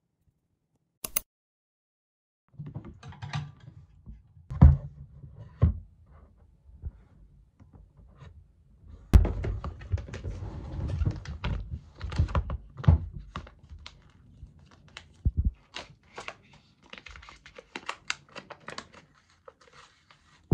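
Handling noise on a desk: a click about a second in, then irregular shuffling with several dull thunks as things are moved and set down. Near the end, a plastic sheet-mask packet crinkles as it is handled.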